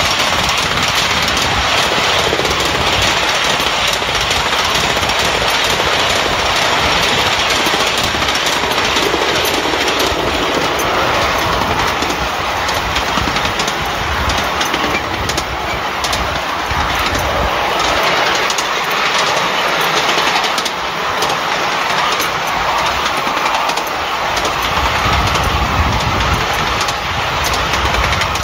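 A 5-inch gauge miniature steam tank locomotive running along the track, its wheels clicking over the rail joints.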